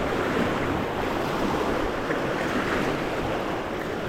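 Whitewater of a river rapid's wave train rushing and splashing steadily around a canoe running through it.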